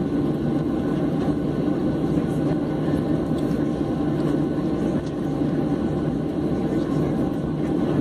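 Steady low cabin noise of a Boeing 737's jet engines and airflow at taxi power, heard from inside the passenger cabin.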